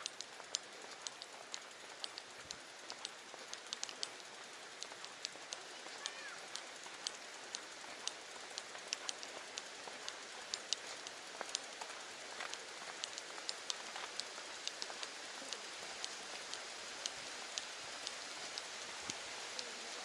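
Water drops tapping irregularly, several sharp ticks a second, over a steady hiss: rain or drips falling on a wet mountain road.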